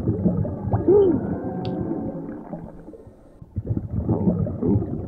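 Animated-film soundtrack: a low underwater rumble with gurgling, as a shark looms into view. It dies down about three seconds in, then swells again.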